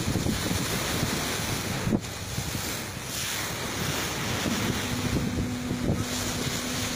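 Wind buffeting the microphone over choppy lake water, heard from a boat. A brief knock comes about two seconds in, and a steady low hum joins about five seconds in.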